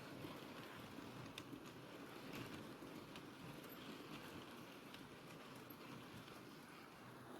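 Faint running of an OO gauge model train on its track: a low rumble with occasional light clicks of the wheels over the rail joints.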